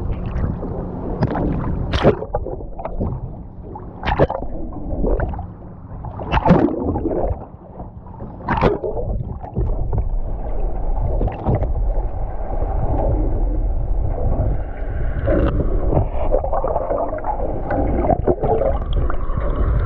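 Muffled gurgling and sloshing of seawater around a camera held in the water, with a sharp splash about every two seconds in the first half as it moves through the surface, over a low steady boat hum.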